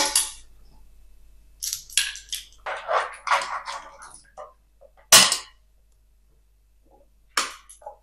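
A nylon pasta server scraping and knocking in a stone-effect non-stick pan as spaghetti with clams is lifted out, clam shells clattering against each other and the pan in short rattles. The loudest sound is a single sharp clack about five seconds in.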